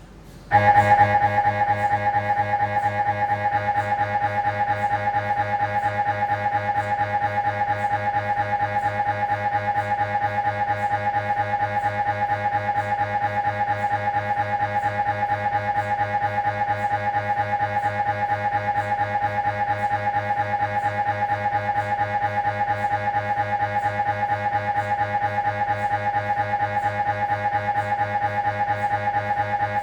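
Siemens Magnetom Avanto fit MRI scanner's gradient coils running an imaging sequence: a loud, steady pitched drone made of rapid, even pulses. It starts abruptly about half a second in.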